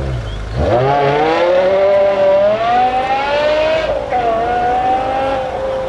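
BMW M5 E60's naturally aspirated 5.0-litre S85 V10 accelerating away. The exhaust note rises sharply about half a second in and holds high. It drops in pitch briefly about four seconds in, then carries on steady.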